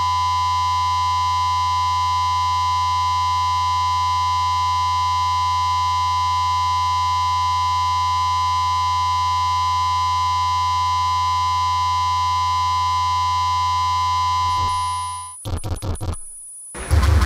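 Steady electronic drone: a dense chord of held tones over a low hum, unchanging for about fifteen seconds. It then fades, breaks into a few short glitchy stutters and drops out briefly, and a louder, noisier passage comes in near the end.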